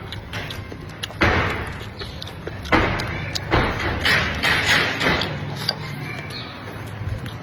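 Close-up crunching and chewing of stir-fried spicy pork cartilage, in several loud crackly bursts, the longest a little before the middle.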